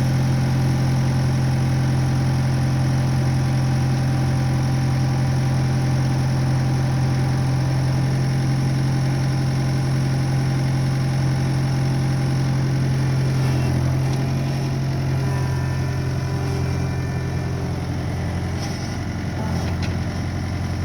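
Skid steer engine running steadily. About fourteen seconds in, its pitch drops and stays lower.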